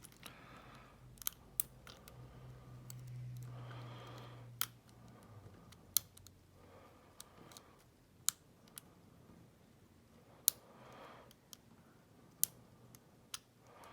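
Sharp, scattered clicks of a lock pick and tension wrench working the pin stack of a five-pin Schlage deadbolt cylinder, about one click every second or two, as pins are set one by one.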